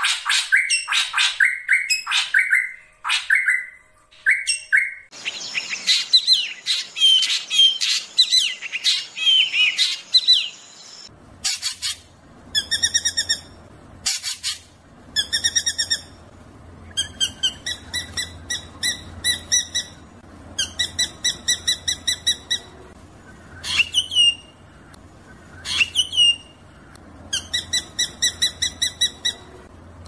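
Drongo song: rolling bursts of rapid, repeated notes with a few rising whistles. It is spliced from several recordings, so the background changes suddenly at about 5 and 11 seconds, and a faint low hum sits under the later part.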